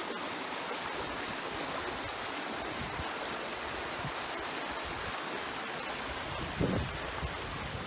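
Steady rush of running water, an even noise without any rhythm, with a brief low bump a little before the end.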